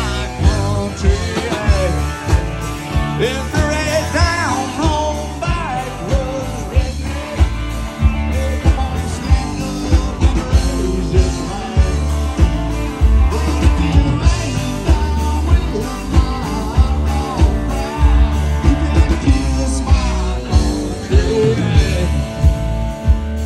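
Live country rock band playing amplified electric guitars and a drum kit, with a steady beat.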